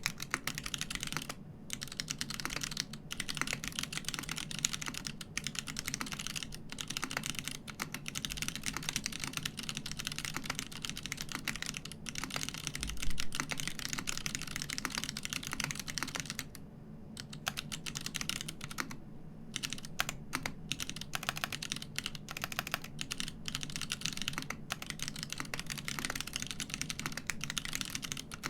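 Mechanical keyboard with Kailh Box Crystal switches, an aluminium plate, a polycarbonate TX60 HHKB-layout case and GMK keycaps, typed on at a fast, continuous pace. The key clacks come in quick runs, with a few brief pauses, and there is one louder strike about 13 seconds in.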